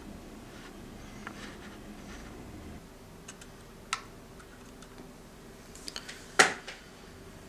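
Light clicks and taps of a plastic scale model and figure being handled and set down on a cutting mat, a few scattered ticks ending in one louder, sharp click near the end.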